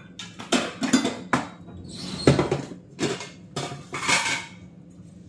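Steel kitchen containers and utensils clinking and clattering as they are handled: a run of about ten sharp metal knocks and clinks, the loudest about two seconds in, with a short scrape near the end.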